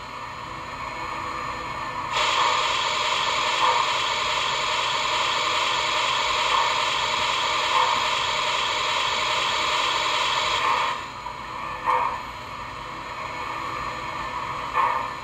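Simulated steam hiss from the Proto-Sound 2.0 sound system of an MTH RailKing Pennsylvania 2-8-0 Consolidation model locomotive standing still. A loud steady hiss starts about two seconds in and cuts off suddenly about nine seconds later, followed by a few short bursts near the end.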